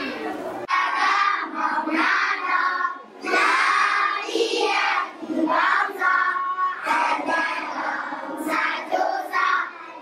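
A class of children singing together in unison, many young voices in phrases. Something else is heard very briefly before the singing starts, a little under a second in.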